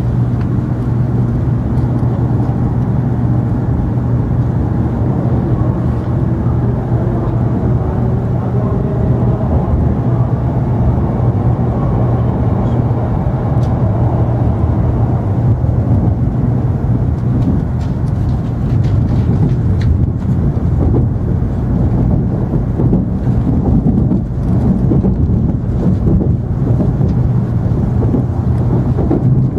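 Inside the cabin of an N700-series Shinkansen pulling out and gathering speed: a steady low rumble and hum, with a faint gliding whine from the traction motors in the first half. From about two-thirds in, short clicks and knocks as the wheels run over rail joints and points.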